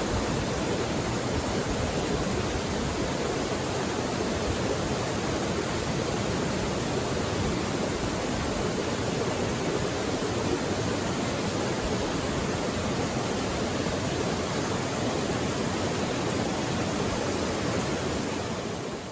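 Mountain creek water rushing steadily over rocks, an even unbroken noise. It begins to fade out near the end.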